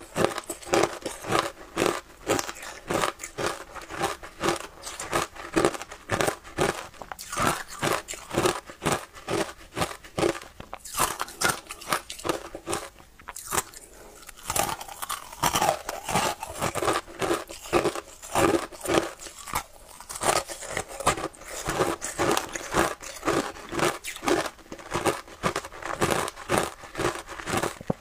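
Close-up crunching and chewing of ice coated in matcha milk powder: a rapid run of sharp, brittle crunches as the ice is bitten and ground between the teeth. It eases briefly about halfway through.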